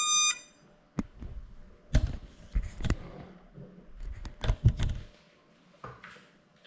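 A short electronic beep from the GoPro as it starts recording, then a series of handling knocks and thumps on the camera as the drone carrying it is moved about and set down on the floor.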